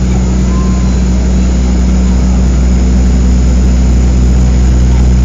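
Inside the passenger cabin of a turboprop airliner: the engines and propellers give a loud, steady drone with a deep, even hum, growing slightly louder about halfway through.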